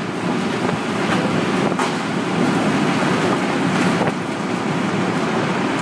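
Tornado wind passing close by, a loud, steady, deep rushing rumble. A few sharp clicks cut through it.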